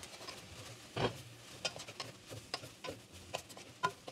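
Wooden spoon stirring and tossing fried rice in a pot: a run of irregular scrapes and knocks of the spoon against the pot, loudest about a second in and near the end.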